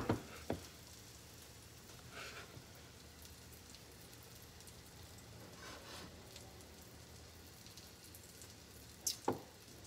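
Pancake batter sizzling in butter in a frying pan, a faint steady crackle. A light knock comes about half a second in, and a sharper, louder one near the end.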